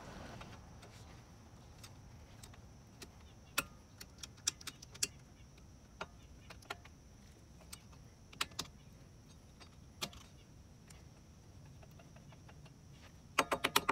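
Scattered light metallic clicks and taps from hands handling parts at a car's front wheel hub, with a quick run of four or five clicks near the end.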